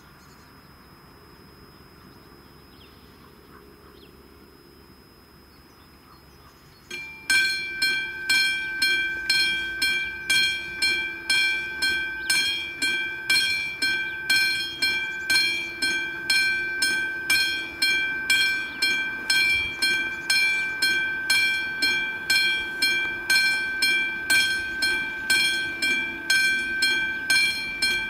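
Level crossing warning bell starting to ring about seven seconds in, then a steady, loud ringing at about two strikes a second. The crossing has just activated, signalling an approaching train.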